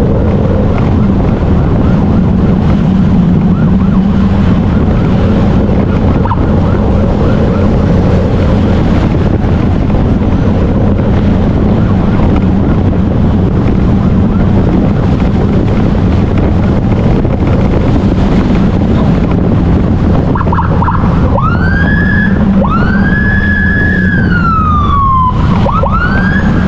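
Emergency siren heard over steady motorcycle engine and wind noise. About twenty seconds in the siren comes through clearly, with several rising and falling wails.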